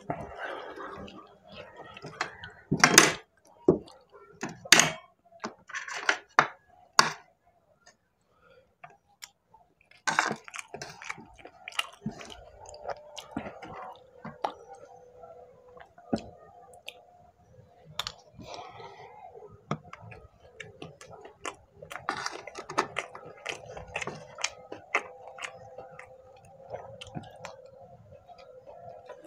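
Close-miked eating: biting and chewing boiled corn on the cob and spoonfuls of mutton pulao rice, with sharp, loud crunchy bites in the first few seconds and softer, wet chewing later on.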